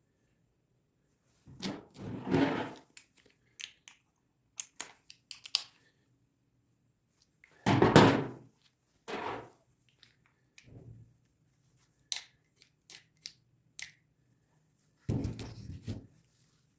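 Parts and tools being handled during small-engine carburetor reassembly: four separate dull thunks set down among scattered small clicks and taps, with silence in between.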